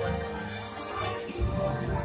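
Music from the ride's soundtrack playing through the attraction's sound system, with sustained tones over a low pulse.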